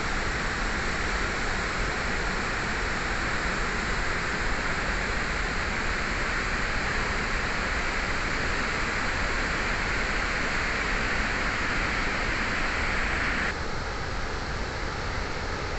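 Floodwater rushing out of a dam's open spillway gates and churning down the river: a loud, steady rush of water. It turns abruptly duller about thirteen seconds in.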